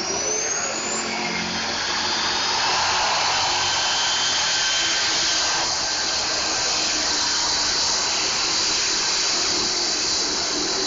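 A diesel pickup truck at full throttle pulling a sled, its engine and turbo giving a loud, steady, hissing whine. A rising whistle tops out about a second in.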